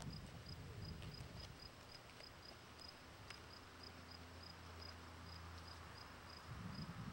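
Faint cricket chirping steadily, a short high note repeated about three times a second, over a low rumble.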